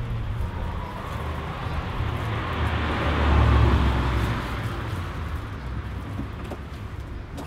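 A car passing by, its noise swelling to a peak about three and a half seconds in and then fading away, over a steady low rumble.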